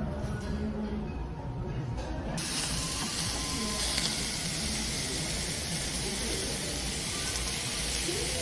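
Heavy typhoon rain pouring down: a low rumble, then a dense, steady hiss that sets in suddenly about two and a half seconds in.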